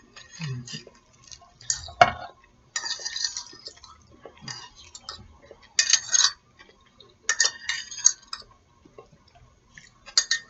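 Utensils scraping and clinking against a plate as food is pushed around and split up, in a series of short, separate scrapes.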